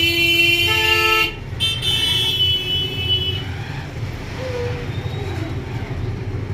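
Vehicle horns honking from road traffic: one long steady honk that stops about a second in, then a second, higher-pitched honk lasting about two seconds, over a steady low traffic rumble.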